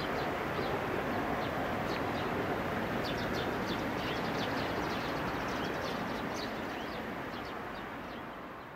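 A train's running noise fading steadily as it pulls away into the distance, with small birds chirping over it.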